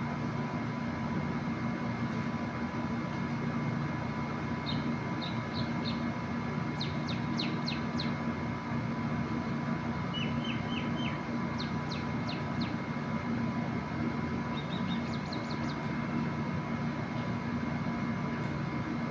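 Small birds chirping in short runs of quick high notes, about five runs in all, over a steady mechanical hum.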